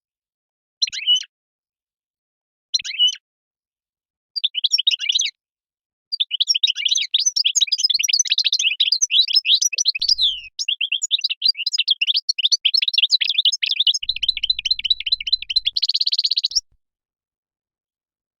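European goldfinch calling and singing: three short chirps a second or two apart, then a long, fast twittering song of about ten seconds that ends in a brief buzzy trill.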